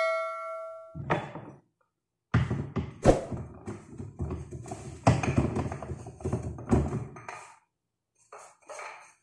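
Kitchen items being handled and set down on a counter. A struck metal item rings and fades over the first second, then comes a run of irregular clattering knocks and thunks for about five seconds, and a few softer short knocks near the end.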